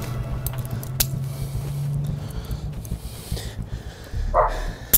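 Metal handcuffs clicking shut on a suspect's wrists, a few sharp clicks in the first second, over a low steady drone. Near the end comes a short yelp-like cry, then a sharp snap.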